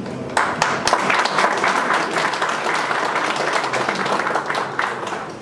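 Audience applauding, starting about half a second in and tailing off near the end.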